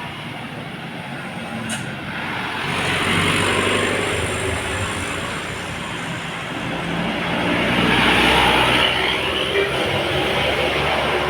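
Road traffic: large vehicles passing close by, their engine and tyre noise swelling twice, about three seconds in and again about eight seconds in.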